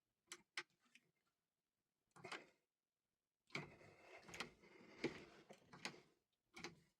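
Faint metallic clicks and scraping of a pick tool being worked and turned inside a Vachette Radial lock cylinder: a few sharp clicks at first, then a longer stretch of scraping and clicking in the second half. The tight cylinder is slowly turning under the tool.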